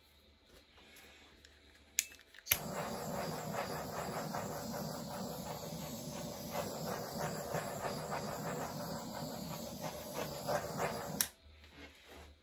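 Handheld butane torch lit with a click about two and a half seconds in, its flame then giving a steady hiss for about nine seconds before it is shut off sharply with a click near the end.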